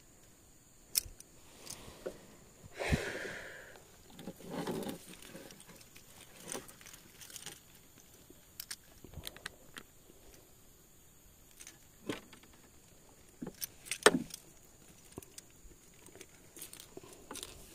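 Scattered small metal clicks and clinks of a fishing reel being handled and taken apart by hand, its broken handle grip and gear being removed. There is a brief rustle about three seconds in and a sharper click late on.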